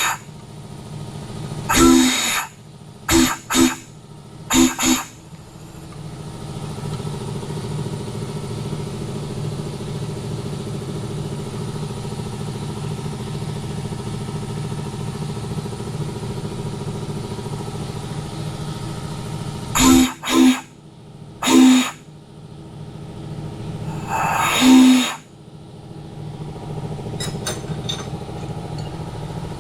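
3D-printed six-chime Santa Fe steam whistle blown on compressed air in short blasts: five in the first few seconds, then four more around twenty seconds in, the last one longer. Between the blasts the air compressor runs steadily, refilling its tank.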